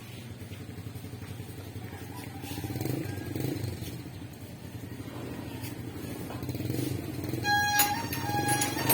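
A small engine running with a steady low hum. About seven and a half seconds in, an electronic beeping tune starts over it in short stepped notes.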